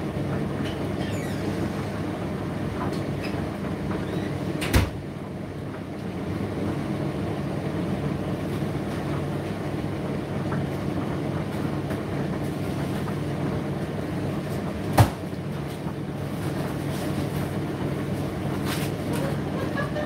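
Indesit IDC8T3 condenser tumble dryer running mid-cycle: a steady motor and drum hum, with two sharp knocks about ten seconds apart, the second louder.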